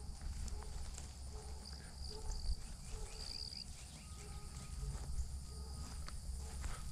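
Footsteps through grass and leaf litter, with insects chirping steadily in the background and a low rumble on the microphone.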